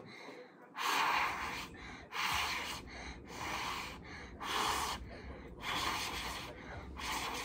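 A girl blowing on her freshly painted fingernails to dry the polish: a string of about six or seven separate breathy puffs, roughly one a second.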